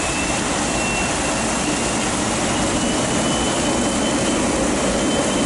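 Jet airliner's turbofan engines running as it rolls along a wet runway, a steady loud roar with a thin high whine above it, mixed with the hiss of heavy rain.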